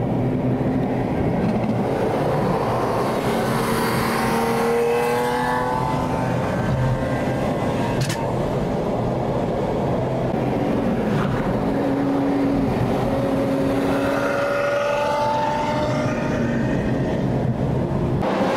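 Lamborghini Aventador V12 engines running at speed, their pitch rising and falling as they accelerate and ease off, over steady road and wind noise.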